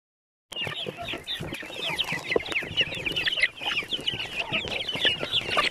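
A flock of chickens crowding close and clucking and calling in a dense, overlapping chatter, with frequent sharp taps mixed in. It starts about half a second in.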